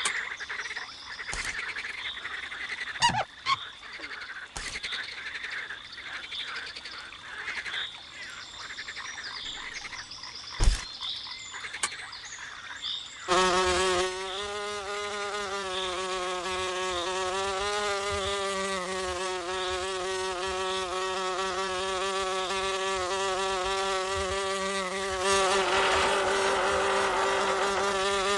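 A fly buzzing in a steady drone with a slightly wavering pitch, starting a little before halfway and running on. Before it come repeated small chirps, with a few sharp clicks.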